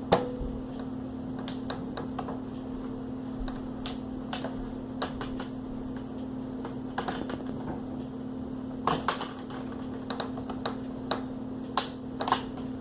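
Irregular sharp plastic clicks and taps as a laptop's plastic casing is handled and pried at its snap clips, with a louder click at the start and small clusters of clicks later on. A steady low hum runs underneath.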